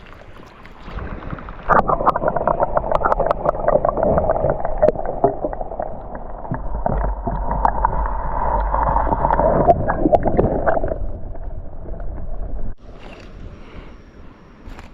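Water splashing and sloshing close up as a carp is released back into the river, with many quick splashes over a low rumble. It starts about two seconds in and cuts off abruptly near the end.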